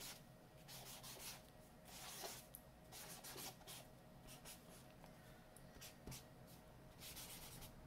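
Fat white marker tip scratching across black sketchbook paper in a quick run of short, faint strokes as a tag is written.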